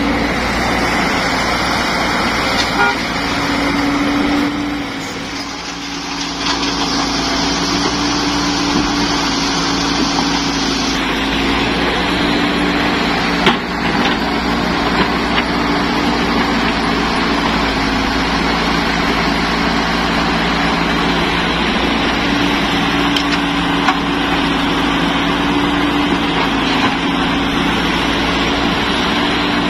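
Caterpillar E120B excavator's diesel engine running steadily under load while it digs and swings rock, with one sharp knock about halfway through.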